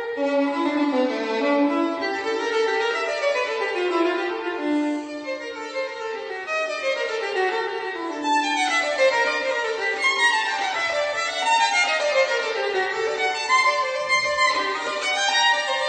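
Instrumental music with quick runs of notes, many falling step by step.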